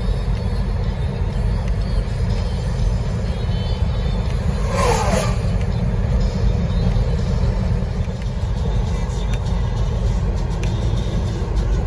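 Steady road noise heard from inside a car driving on a wet road: a low rumble of engine and tyres with an even hiss. A brief wavering squeak comes about five seconds in.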